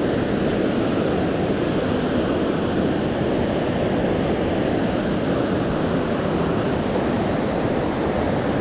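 Oceana Falls on the Tallulah River: a steady, loud rush of falling water.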